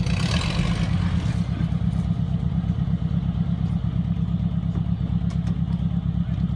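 Off-road 4x4's engine running steadily with an even low pulse, with a brief rush of noise in the first second or so.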